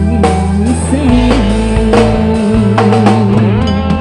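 A live Javanese pop band plays while a woman sings: kendang hand drum, drum kit and electric guitars under a steady bass, with drum strokes keeping the beat.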